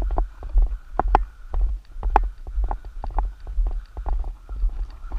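Footsteps crunching on a dirt and gravel road at a walking pace of about two steps a second, over a constant low rumble.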